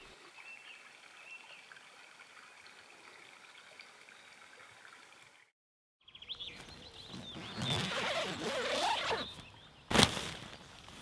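Birds singing faintly in woodland, then a sudden cut to louder birdsong over the rustle of nylon tent fabric being handled, with one sharp snap about ten seconds in.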